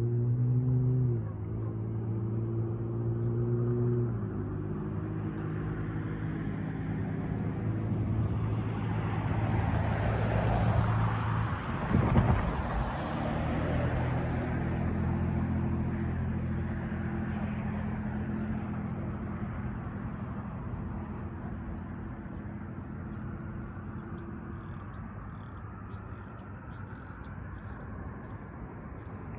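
Amtrak San Joaquins passenger train with an EMD F59PHI diesel locomotive passing a grade crossing: the rumble of wheels on rail swells to its loudest about twelve seconds in, then fades, over steady droning tones that change pitch twice in the first few seconds.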